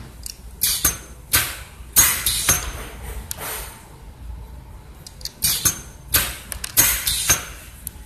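Small glass vials with flip-top caps being handled, clinking against each other and knocking on the vial crimper's metal base plate and the bench: a series of sharp clicks and clinks, in two bunches, one early and one in the second half.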